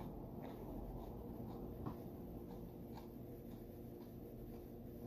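Faint eating noises: soft clicks and rustles of food being handled and chewed, over a steady low hum.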